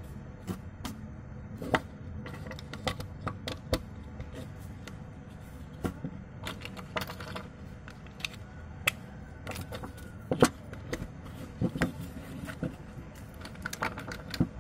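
Plastic toy building bricks clicking and knocking as they are handled and pressed together: a string of sharp clicks at irregular spacing, the loudest about ten seconds in, over a steady low background hum.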